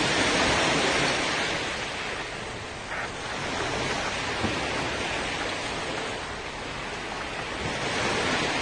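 Sea waves and wind blowing across the microphone: a steady rushing noise that swells near the start, eases off in the middle and builds again near the end.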